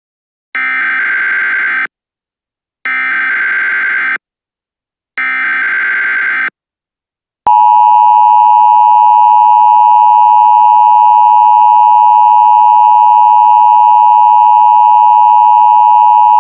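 Emergency Alert System tones: three short buzzy SAME header data bursts about a second apart. From about seven and a half seconds in comes the steady, loud two-tone EAS attention signal.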